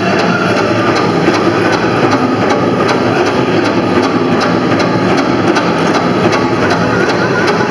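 Powwow drum group playing a steady beat on a large shared drum and singing, loud and dense.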